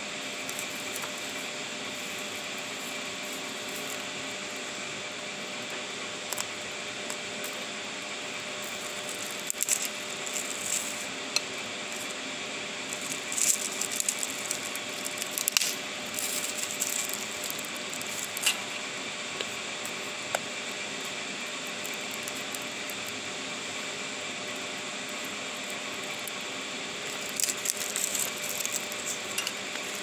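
Campfire in a steel fire pit crackling, with sharp pops in clusters, over a steady rushing-water hiss.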